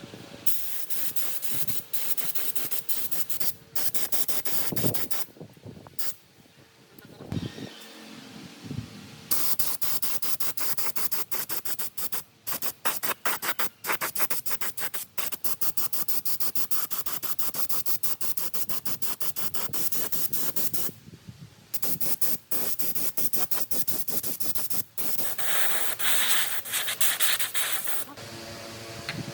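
Hissing spray noise in long bursts with short breaks, typical of a compressed-air tool at work.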